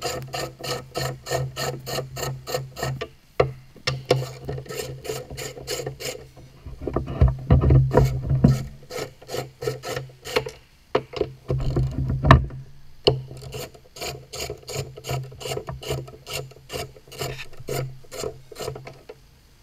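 Socket ratchet clicking quickly, about four or five clicks a second, as 10 mm bolts are undone. There is louder clattering of the tool and metal around eight and twelve seconds in.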